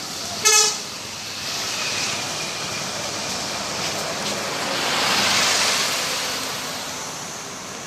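Road traffic rushing past with wind on the microphone, the noise swelling as a vehicle goes by about five seconds in. About half a second in, a short, loud horn beep sounds once.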